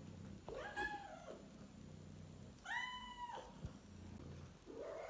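Domestic cat meowing: one call about half a second in, a louder, steady-pitched one about three seconds in, and another starting near the end.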